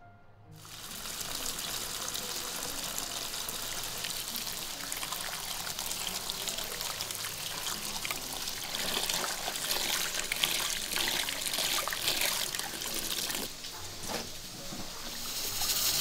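Tap water pouring and splashing into a metal basin as hands rinse leafy greens. Near the end the water drops away and a steady hiss takes over.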